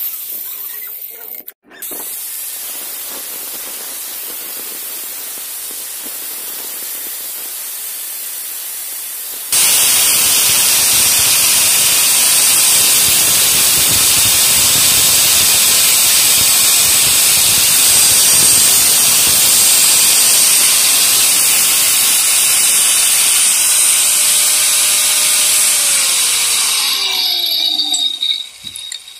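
Electric angle grinder with a thin cutting disc cutting the steel bolts of a nut-and-bolt hinge: a steady hiss that jumps much louder about a third of the way in, then the motor winds down with a falling whine near the end.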